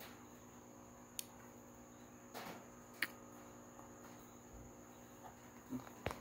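A few faint, sharp clicks and knocks of parts being handled during assembly of a plastic prop, over a steady high-pitched tone and a low hum.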